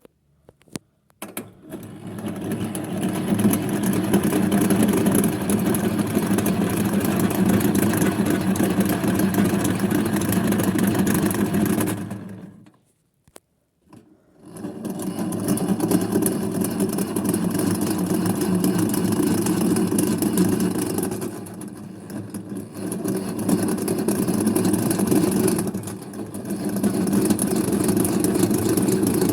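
Small electric motor of a 1960s Hoovermatic toy twin-tub washing machine running with a steady buzzing hum after a few clicks at the start. It stops for about two seconds roughly twelve seconds in, then starts again and keeps running, dipping in level twice near the end.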